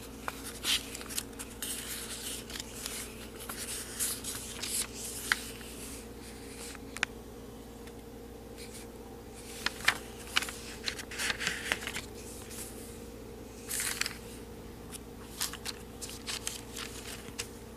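Pages of an old Bible being turned by hand: scattered soft paper rustles and light ticks, over a steady faint hum.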